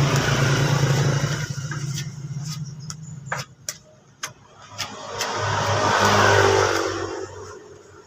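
Engines of passing road vehicles: one runs steadily and drops away about three and a half seconds in, then a second swells and fades near the end. A few sharp clicks fall in the lull between them.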